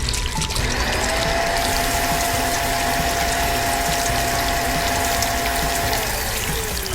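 Cartoon mechanical sound effect: a motor whirs up about half a second in, holds a steady whine over a rattling, ratchet-like clatter, then winds down near the end.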